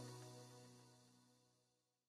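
Outro music with sustained tones fading out, gone to silence about a second and a half in.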